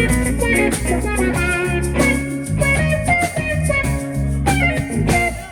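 Live band playing an instrumental passage: guitar lines over drums and a deep low end, with the sound dropping away briefly at the very end.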